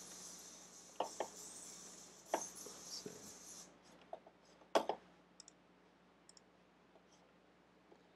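A handful of computer mouse clicks, the loudest about five seconds in. Under the first few is a faint high hiss from the software radio's audio preview, which cuts off after about three and a half seconds as the receiver's capture is stopped.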